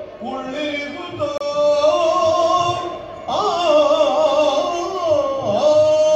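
Yakshagana-style singing: a male voice holds long notes with wavering, ornamented turns, then starts a new phrase with a rising swoop about three seconds in.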